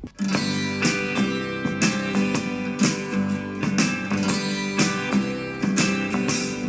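Country-folk song with guitar and a steady beat, played back through a small portable Bluetooth speaker in a sound test. It drops out briefly right at the start.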